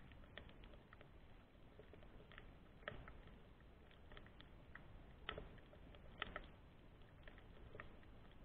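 Quiet underwater ambience recorded by a submerged camera: a faint hiss with irregular sharp clicks and crackles, about one or two a second, the louder ones about three, five and six seconds in.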